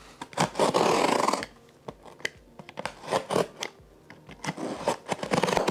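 A box cutter slicing through the packing tape on a cardboard shipping box: one long rasp of about a second, then shorter scratches and clicks as the blade works along the seam.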